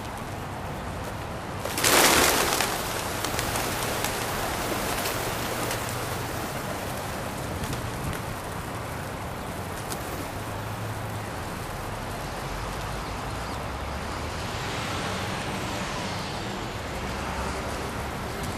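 Steady outdoor city noise, like distant traffic, around a flock of feral pigeons feeding. A loud rush of noise lasting about a second comes about two seconds in.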